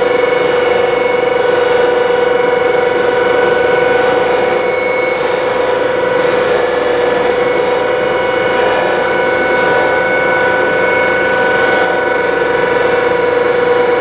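Bench polishing motor spinning a red abrasive wheel, matte-finishing a sterling silver cuff bracelet: a steady motor hum with a hiss of abrasion.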